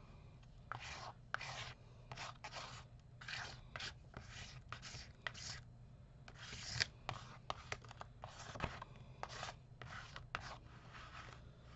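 Palette knife scraping gold texture paste across collage paper in short, irregular strokes, about two a second.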